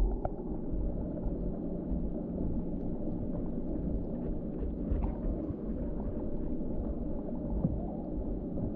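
Muffled, steady low rumble and gurgle of water heard through a camera held underwater in a container of live fish, with a few faint ticks and knocks.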